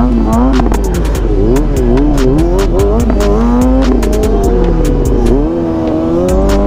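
Kawasaki sport bike engine revving up and down in quick swells during a wheelie ride, over a hip-hop beat with hi-hat clicks and a deep bass that drops out briefly near the end.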